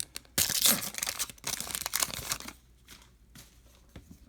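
Baseball card pack wrapper being torn open and crinkled, loud for about two seconds, then quieter rustling as the cards are handled.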